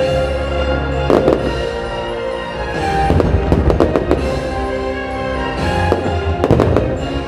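Aerial fireworks bursting over loud orchestral show music. Sharp bangs come about a second in, in a quick run through the middle, and again in a cluster near the end.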